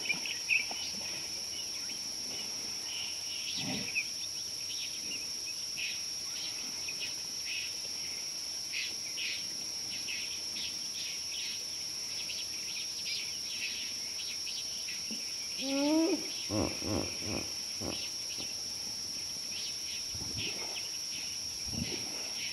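Insects droning steadily on one high note, with birds chirping on and off. Late on, a large animal calls once: a short rising squeal followed by a run of deep grunts.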